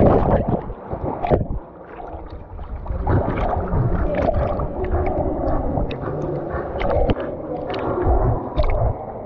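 A dog plunges into a pool with a loud splash, then paddles and swims, with water sloshing, gurgling and splashing close around a camera strapped to its body.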